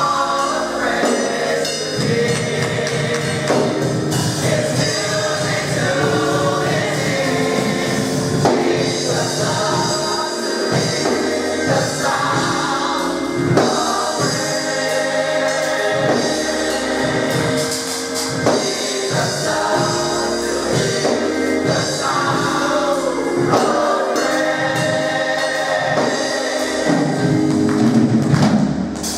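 A mass choir singing a gospel song with instrumental accompaniment: bass, drums and tambourine.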